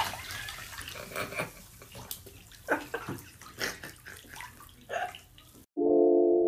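Steady hiss of running water, as from a bathtub filling, with a few brief louder sounds over it. Piano music comes in near the end.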